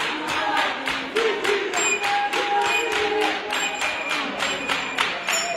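Group of singers performing a Botswana traditional song over sharp, even hand clapping at about four beats a second.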